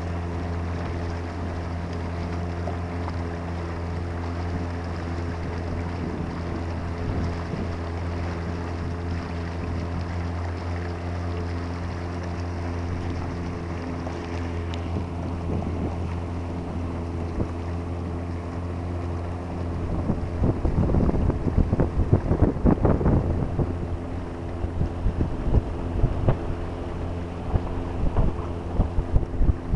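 Boat motor running steadily at one pitch. About two-thirds of the way through, wind starts buffeting the microphone in irregular gusts.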